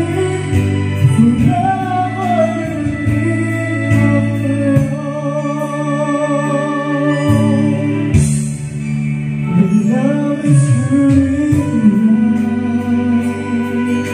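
A slow karaoke ballad playing from the Karavision KP9800 karaoke player, with a voice singing the melody over the backing track.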